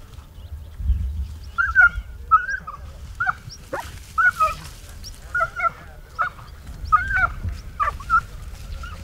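Ibizan hound (podenco ibicenco) giving short, high yelping barks, about a dozen at irregular intervals starting about a second and a half in, while hunting through scrub for rabbit.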